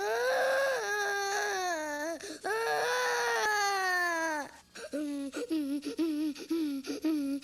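High-pitched crying sound effect: two long wails, each rising slightly and then falling away, followed by quick repeated sobs, two or three a second.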